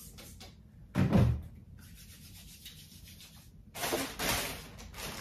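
Laundry being handled at a front-loading washing machine: a single loud thud about a second in, then a stretch of rustling clothes a little before the end.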